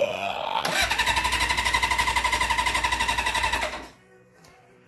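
1980 Suzuki GS550's electric starter cranking the four-cylinder engine. A whine rises as the starter spins up, then the cranking holds steady with fast, even pulsing for about four seconds and stops abruptly without the engine catching. The bike will not start; the owner blames an electrical ignition fault.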